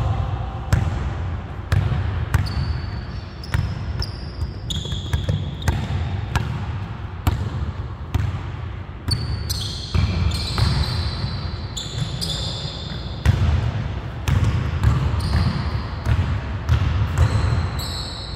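Basketball dribbled on a hardwood gym floor: a steady run of bounces about once a second, with short high sneaker squeaks on the wood.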